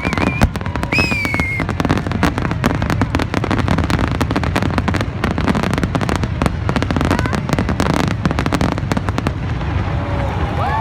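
Fireworks going off in a dense, rapid barrage: many sharp bangs and crackles each second over a continuous low rumble, thinning out near the end.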